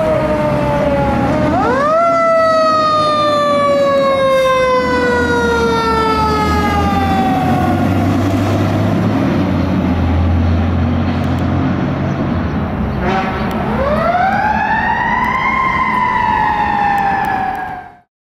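Pierce fire engine responding with its siren on: a wailing tone that winds up quickly and then slowly falls away, twice, over the low running of the truck's engine. The sound cuts off abruptly near the end.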